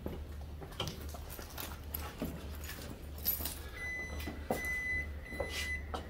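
A refrigerator's power cord is plugged into a wall outlet, with light knocks and footsteps on a hard floor. About four seconds in, a steady high-pitched whine starts as the refrigerator powers up, over a constant low hum.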